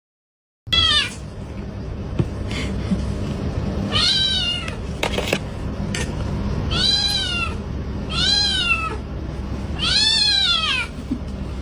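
Domestic cat meowing five times, each meow rising and then falling in pitch, over a steady low background hum; a short click sounds about halfway through.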